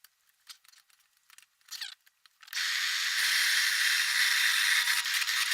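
A few light clicks and handling knocks, then about two and a half seconds in a handheld power tool starts and runs steadily, a loud even hiss with a faint whine in it.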